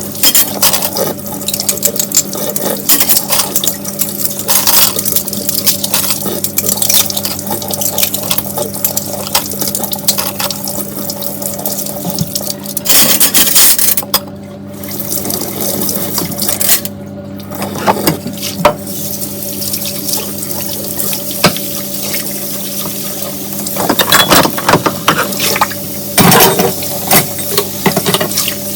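Water running from a kitchen tap into the sink during dishwashing, with frequent short clinks and knocks of dishes being handled and rinsed.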